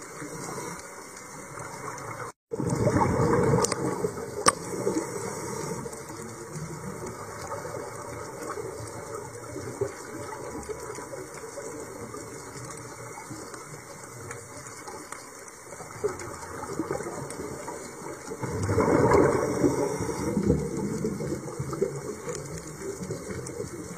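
Underwater ambience with a scuba diver's exhaled regulator bubbles gushing, loudest in two swells: one about two and a half seconds in, right after a brief cut-out, and one around nineteen seconds in.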